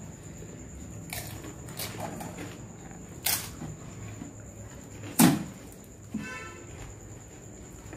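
Crisp pani puri shells being cracked open by thumb and handled against steel plates and bowls: a few scattered sharp cracks and clicks, the loudest a thunk about five seconds in.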